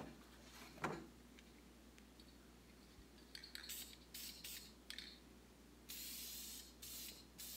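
Aerosol spray can of flexible vinyl-and-fabric coating hissing in several short spurts, then one longer steady spray near the end. A soft thump about a second in.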